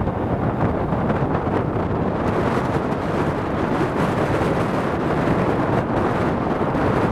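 Steady roar of the Boeing C-17A Globemaster III's four Pratt & Whitney F117-PW-100 turbofan engines, a dense rumble that grows a little brighter and more hissing about two seconds in.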